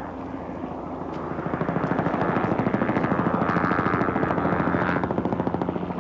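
Light helicopter flying low overhead, its rotor beating rapidly. It grows louder about a second and a half in and eases off near the end.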